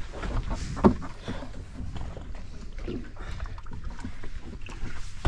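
Water sloshing against a small boat's hull over a low rumble, with faint scattered clicks and one sharp knock a little under a second in.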